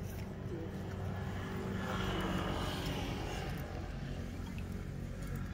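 A steady low engine hum, like traffic or an idling vehicle, with a louder swell about two seconds in that slowly fades.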